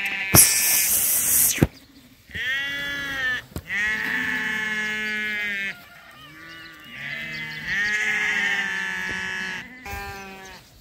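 Lambs about seven months old bleating, several overlapping calls one after another, some with a wavering quaver. A short burst of rushing noise comes about half a second in.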